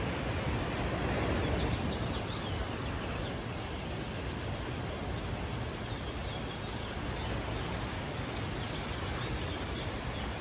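Steady rushing outdoor noise, with faint bird chirps now and then.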